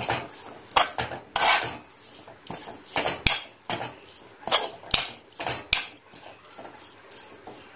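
A metal spatula stirring drumstick leaves and grated coconut in a metal pan. It scrapes and clinks against the pan at irregular intervals, with a few sharper knocks about midway.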